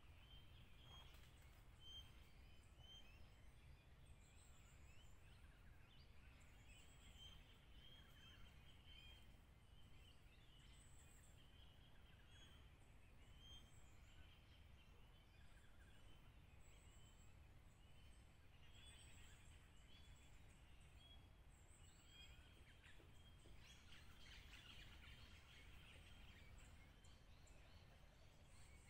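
Near silence: faint bird calls, short chirps repeating over and over, busier near the end, over a steady low rumble.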